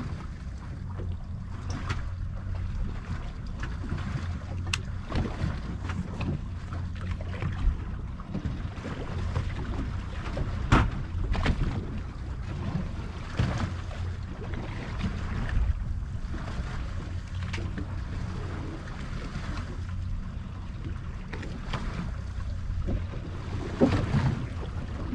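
Wind and sea around a boat at sea: a steady low hum under wind on the microphone and water moving against the hull, with scattered short knocks.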